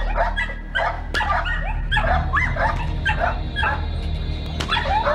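Young Australian Kelpie barking and yipping in rapid excited bursts, about three a second, at a helper in protection training, with a short break about four seconds in. Background music plays underneath.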